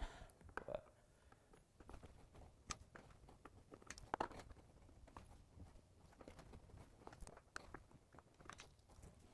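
Faint, scattered clicks and light knocks of hands handling the wheels and hardware of a plastic Pelican case.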